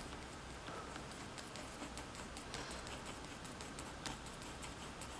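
Pencil scratching faintly on paper in many quick, irregular strokes, sketching fur.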